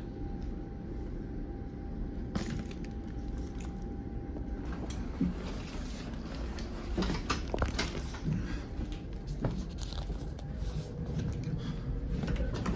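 Steady low rumble inside an NJ Transit Comet passenger railcar, with scattered clicks, knocks and rattles as someone walks through the car past the seats, thickest in the middle of the stretch.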